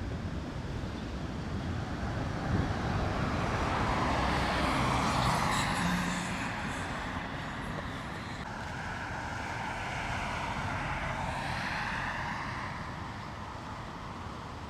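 Two vehicles passing on a road, each swelling up and fading away: the first about four to six seconds in, the second about ten to twelve seconds in.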